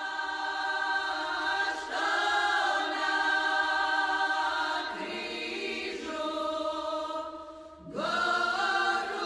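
Choir singing a slow chant in long held chords, moving to new chords about two, five and eight seconds in.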